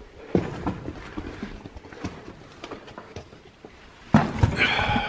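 Footsteps, scuffs and knocks of a hiker climbing over rock through a tight cave passage, in an uneven rhythm. About four seconds in a much louder scuffing begins.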